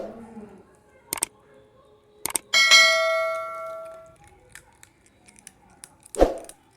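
A bowl knocking and clinking several times. About two and a half seconds in it clangs and rings for about a second and a half before fading, and a louder knock comes near the end.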